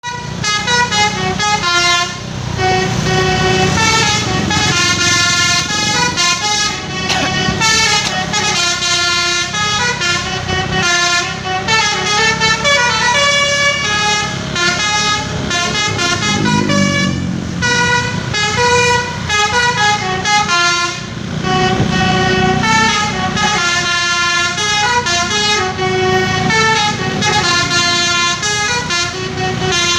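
A bus's basuri horn, a multi-tone melodic air horn, playing a tune: a string of horn notes that step from pitch to pitch every fraction of a second without a break, with the bus's engine running underneath.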